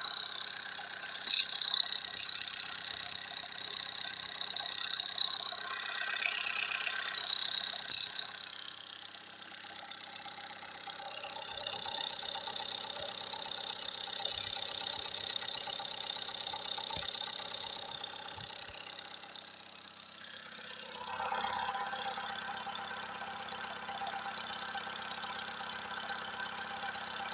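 Warm engine idling with a rapid knocking clatter that appears only once it is hot; it ran quiet with no knock from cold. The tone of the clatter shifts about three-quarters of the way through.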